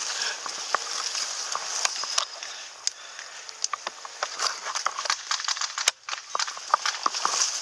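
Tall grass and leafy weeds rustling and brushing against a person moving through them, with scattered light clicks and knocks from handling an airsoft gun.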